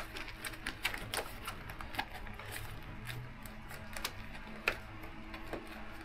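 Irregular light clicks and taps of hand work on motorcycle parts and fasteners, with a sharper click a little past halfway.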